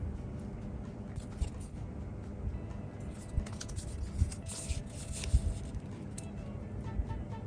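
Packaging being handled: short crinkling rustles of foil or paper with light knocks and scrapes.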